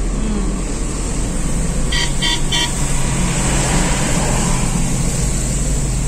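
Car running on a wet road, heard from inside the cabin as a steady rumble and road noise. About two seconds in, a horn gives three quick, high beeps.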